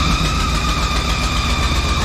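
Carbureted V8 engine of a Ford medium-duty crane truck running as the truck creeps forward at low speed, with a steady high-pitched whine over the engine's low note.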